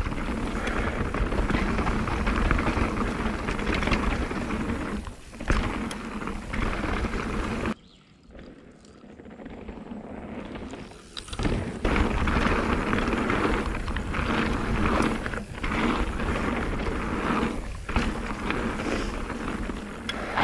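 Mountain bike descending a dirt forest trail, heard from on the bike: tyres rolling over dirt and stones, the bike rattling over bumps, and wind rushing over the microphone. About eight seconds in the sound cuts suddenly to a much quieter stretch, as a rider is heard coming down the trail toward a camera on the ground. A few seconds later the loud on-bike riding noise returns.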